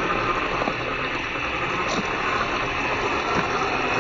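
Axial SCX10 II scale RC crawler driving over loose rock: its brushed electric motor and gear drivetrain whir steadily while the tyres grind on gravel, with a few small knocks.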